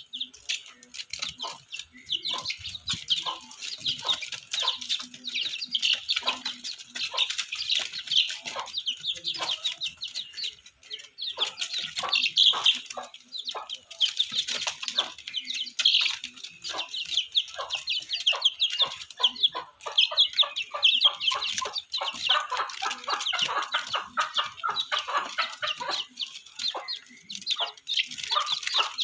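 A group of young chickens peeping and cheeping without pause, many short high calls overlapping, with scattered light taps among them.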